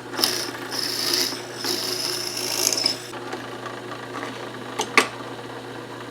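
Electric drill running with a steady motor hum, its bit cutting into plywood in rough grinding bursts for the first few seconds, then two sharp clicks near the end.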